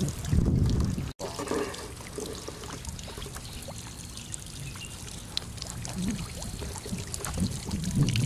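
Snakehead splashing and thrashing in the shallow water as it is dragged to the bank, cut off abruptly about a second in. Then a steadier, quieter wash of water-like noise with scattered small clicks.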